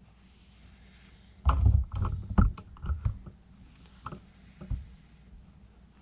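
Handling sounds of a flat piece of horn and a hand engraving tool: a cluster of low knocks and rustles from about a second and a half to three seconds in, then two single clicks.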